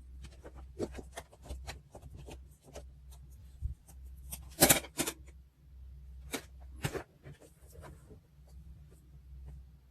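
Paper and stationery being handled over a diary page: light rustles and small ticks, with a sharp double click a little before the middle and another a couple of seconds later.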